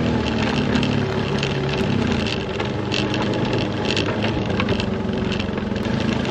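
Off-road ATV or side-by-side engine running at low, slightly varying revs, with irregular clattering and knocking throughout.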